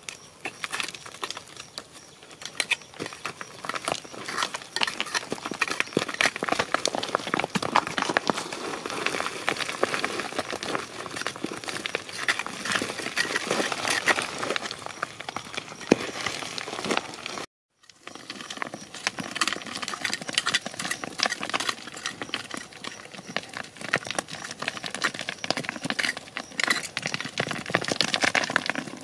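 Short-handled hand digging tool scraping and chopping into stony soil, a dense run of quick clicks and scrapes as dirt and small stones are knocked loose. The sound cuts out for a moment about two-thirds through.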